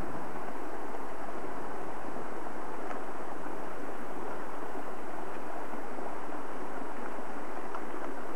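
A steady, even rushing noise, with a few faint clicks over it.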